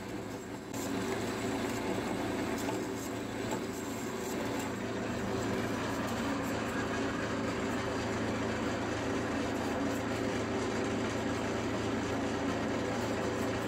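Bandsaw running, its welded-together recycled blade cutting an aluminium bar. About a second in the sound gets louder and settles into a steady machine hum with a whirr.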